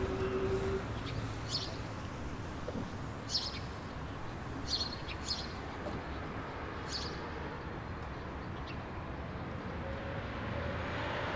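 Outdoor street ambience: a steady low background hum with a bird chirping briefly several times.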